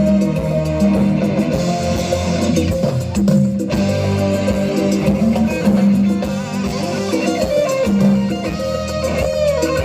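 Live band playing an instrumental passage: guitars over bass and drums, with no singing.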